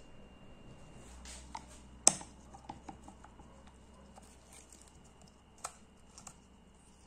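Light clicks and taps of small metal parts and hand tools being handled, with one sharper clack about two seconds in.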